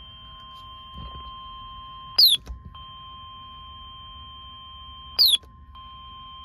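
Electronic beeping: a short, loud, falling chirp about every three seconds over faint steady electronic tones.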